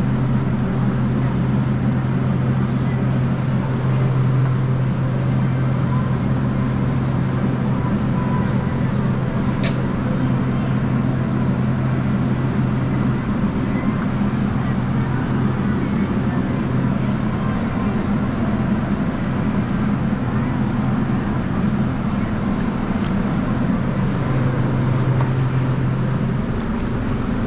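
Steady low hum of a walk-in cooler's refrigeration unit, with one sharp click about ten seconds in.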